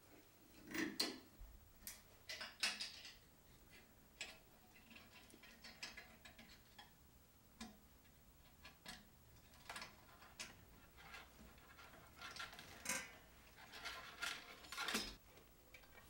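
Faint, scattered metallic clicks and clinks of clamps and hand tools being handled and adjusted, in small clusters with a busier stretch near the end.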